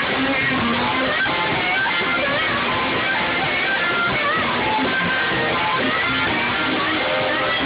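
Live blues band music: a harmonica played cupped against a hand-held microphone, its notes bending and wavering, over electric guitar and drums.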